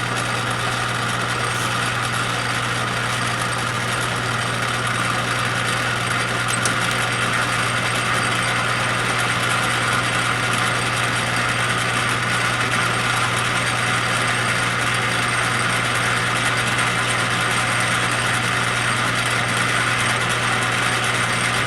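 Metal lathe running steadily, the carriage on power feed, with a steady low hum and hiss. By the owner's measurement the spindle is turning about 143 rpm.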